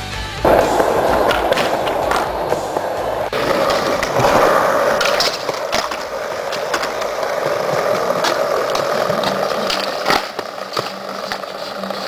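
Skateboard wheels rolling over rough concrete, a steady gritty rumble, broken by a few sharp clacks of the board.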